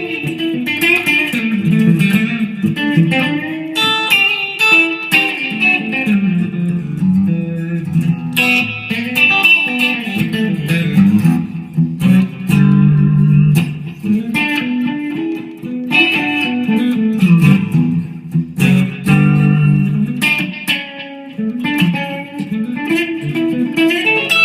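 Epiphone Les Paul Standard electric guitar played clean through an amp on the middle pickup position, its Gibson Burstbucker 3 and '57 Classic humbuckers sounding together. It gives a bright clean tone, with picked single notes and chords ringing one after another.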